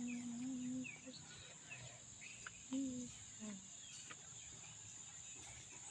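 Steady high-pitched drone of insects, crickets or cicadas, with scattered short bird chirps. A few short, low, steady-pitched hum-like sounds come in the first second and again around three seconds in.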